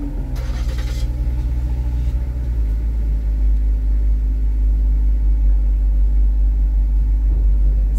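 Steady low engine rumble heard from inside a car while stopped in line, with a brief hiss about half a second in.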